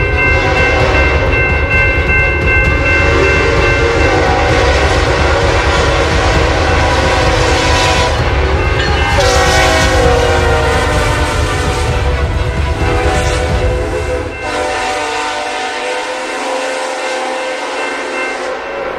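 Train air horn sounding a long chord over the rumble and wheel clatter of a passing train. The horn's chord shifts about nine seconds in, and the low rumble falls away about fourteen seconds in while the horn keeps sounding.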